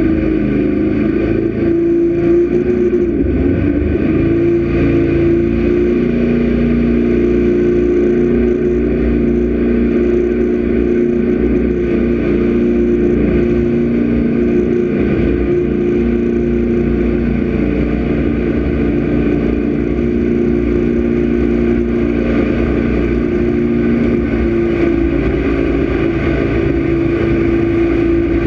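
Jet boat's engine running at steady speed, heard from on board: a constant drone that barely changes in pitch, over the rush of water.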